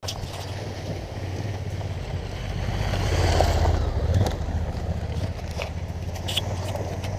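Adventure motorcycle engines running with a low, steady rumble; one bike passes close by, loudest about three to four seconds in, with a few clicks of stones and gravel.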